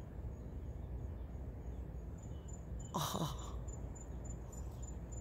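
Insect chirping outdoors at dusk, a thin high-pitched chirp repeating evenly about three times a second, over a low steady background noise.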